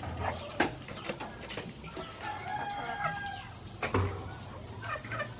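A rooster crowing faintly in the background: one drawn-out call about two seconds in. A few short knocks are heard near the start and the end.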